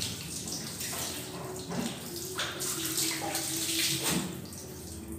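Water pouring and splashing over a dog during its bath, coming in uneven surges with several splashes in the middle.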